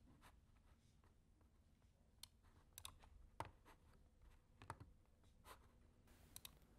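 Near silence broken by about nine faint, scattered clicks from a computer mouse and keyboard in use, a few in quick pairs.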